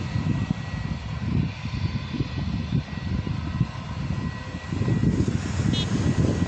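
Jet airliner engines running at a distance with a steady high whine, over an uneven low rumble that swells about five seconds in.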